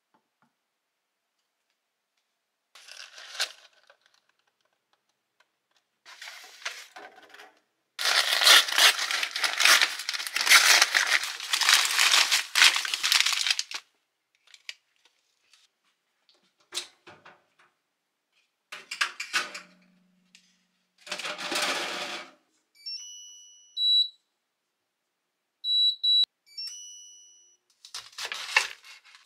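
Crinkling, tearing handling noise in several separate bursts, the longest lasting about six seconds. Later come a few short electronic beeps.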